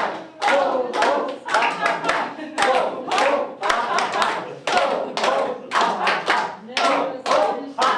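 A group clapping hands together in a steady rhythm, about two claps a second, with voices calling out in time with the claps during a laughter yoga exercise.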